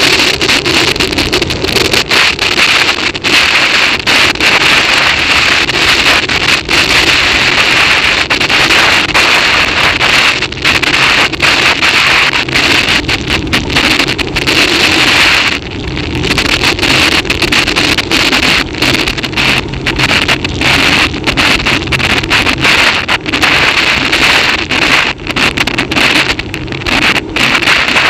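Wind buffeting the microphone of a camera on a bicycle coasting fast downhill: a loud, steady rush with constant crackle, easing briefly about halfway through.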